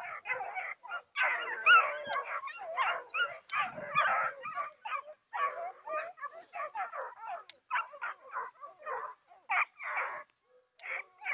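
A pack of Griffon Bleu de Gascogne hound puppies giving tongue on a wild boar, a dense run of overlapping high yelps and bays that thins to a few separate cries near the end.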